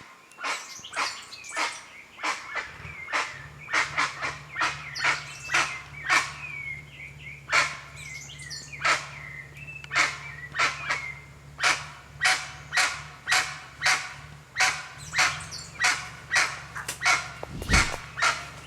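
Jacu (a guan) calling over and over in short, loud, harsh yelps, two or three a second. A thinner warbling bird song sits faintly behind it, and a faint low hum comes in about three seconds in.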